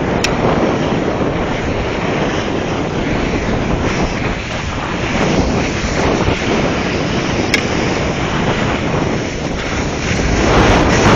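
Wind rushing over the microphone of a phone carried by a skier going downhill, mixed with the hiss of skis on snow. The noise is steady and loud, with two brief clicks and a rise in loudness near the end.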